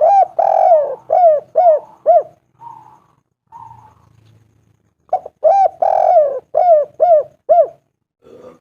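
Spotted dove (tekukur) singing its cooing song: a run of about six quick, arched coos, a pause with a couple of soft notes, then a second similar run about five seconds in, and a faint note near the end.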